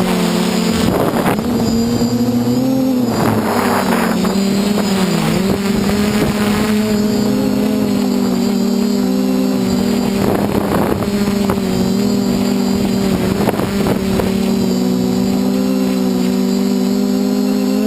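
DJI F450 quadcopter's brushless motors and 8-inch propellers humming steadily as heard from the craft's own frame, the pitch wavering slightly with throttle changes. A few brief rushes of wind noise come through along the way.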